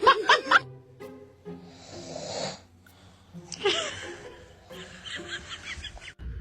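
Snoring: several drawn-out noisy breaths, over background music.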